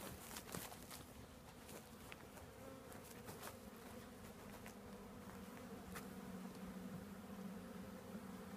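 Honeybees buzzing around an open hive, a steady, faint hum, with a few faint taps.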